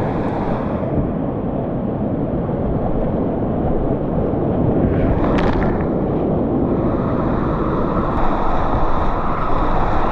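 Whitewater rapids rushing loudly right at a kayak's action camera. About halfway through, water splashes over the camera and hull, and the rush then grows louder and fuller as the kayak runs into the white water.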